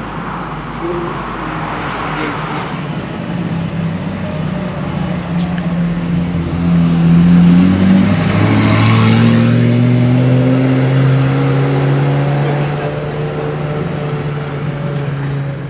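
Ferrari F355's 3.5-litre V8 with a Capristo exhaust, driving past at low revs. The note climbs and is loudest about halfway through as the car passes close by, then settles to a steady drone as it pulls away.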